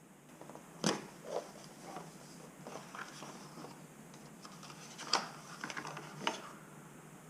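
Handling sounds from unboxing a GoPro Hero 8 Black: three sharp clicks, about a second in and twice near the end, with smaller taps and plastic rustling in between.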